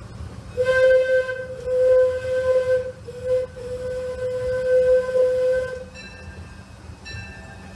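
Steam locomotive whistle of a Disneyland Railroad train blowing a long blast of about five seconds, with a brief break about halfway, over the steady low rumble of the train running on the track.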